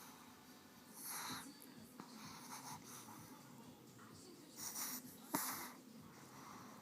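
Sleeping Chihuahua snoring: wheezy, hissing breaths about a second in and twice in quick succession past the middle, the second of those starting with a short click.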